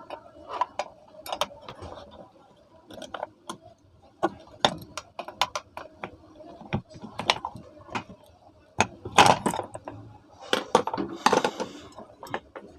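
Metal parts of a ceiling fan being handled and taken apart: irregular clinks and knocks, with two longer rattling, scraping stretches near the end.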